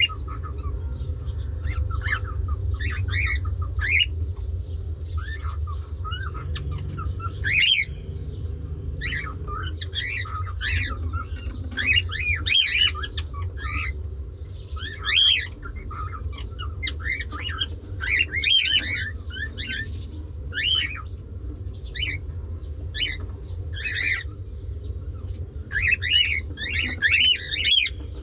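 Cockatiels chirping and squawking in a string of short, rising and falling calls, some louder than others, over a steady low hum.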